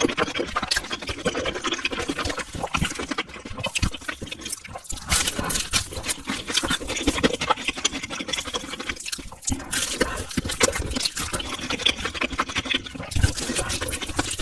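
Close-miked wet eating sounds: a person chewing and slurping spicy stir-fried noodles, with many small, irregular sticky clicks and smacks.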